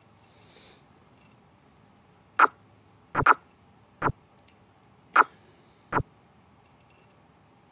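Move sounds of an onscreen chess program: six short, sharp clicks as pieces move on the board, between about two and six seconds in, two of them in quick succession about three seconds in.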